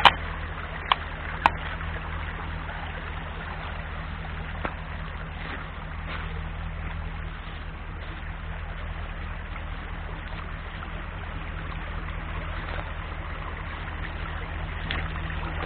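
Small shallow stream running over rocks: a steady trickling rush under a steady low rumble. A few sharp clicks come in the first two seconds.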